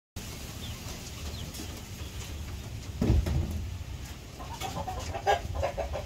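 Aseel Parrot hen clucking, a quick run of short calls in the last second and a half or so. A dull low thump comes about halfway through.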